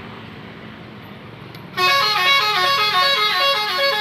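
Basuri telolet bus horn playing a quick melodic tune of stepped multi-tone notes, coming in loud about two seconds in over lower engine and road noise.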